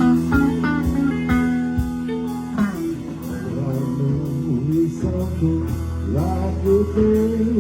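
Live rock band playing an instrumental passage: an electric guitar takes a lead line with bent, sliding notes over bass and drums, and a hi-hat ticks steadily.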